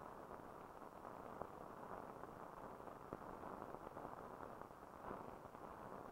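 Faint steady hiss with scattered light crackles, the surface noise of an old film soundtrack, with no other sound.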